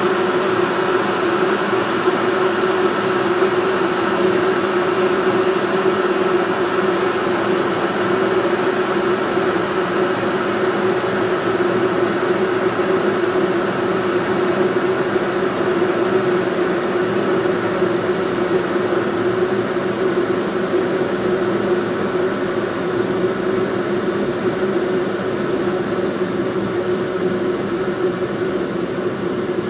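Russell Hobbs electric kettle switched on and heating water: a steady rushing noise with a hum running through it, getting a little quieter near the end.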